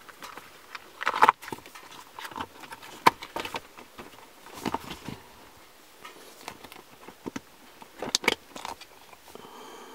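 Hands fitting a rubber shifter boot over a short-throw shift lever: irregular rubbery rustling with scattered sharp clicks and knocks, the loudest about a second in, near three seconds and around eight seconds.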